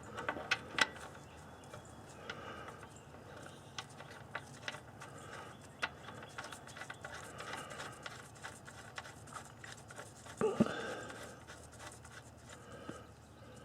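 Scattered light metallic clicks and taps as the oil pan drain plug is put back into a Corvair's air-cooled flat-six engine and worked in by hand and wrench, with a brief breath-like vocal sound about ten seconds in.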